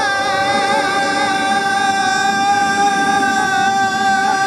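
Two young men singing or shouting one long, high, loud note together with open mouths, held steady at one pitch.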